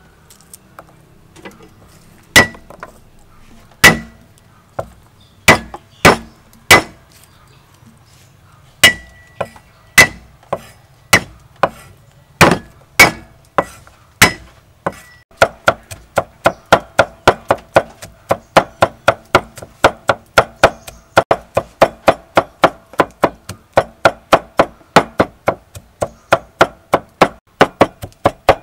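Metal cleaver striking a wooden chopping block as garlic is chopped: first single hard blows with a slight ring, spaced about a second apart, then about halfway through fast, even mincing at about four strokes a second.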